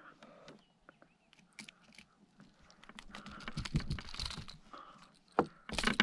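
Scattered light clicks and knocks of fishing pliers and a lip gripper working at a hooked fish beside a kayak, busier in the second half.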